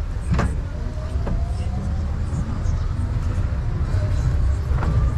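Steady low rumble of a tourist road train running over cobblestones, with a few sharp knocks and rattles from the carriages.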